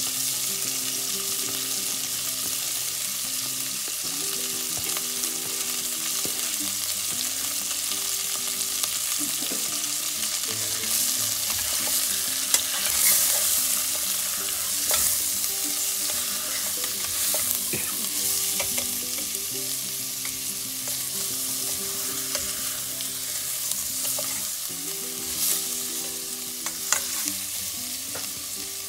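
Chicken pieces sizzling as they fry in chicken fat in a stainless steel pot. A spatula stirs and turns them, scraping and clicking against the pot, with a few louder scrapes about halfway through and near the end.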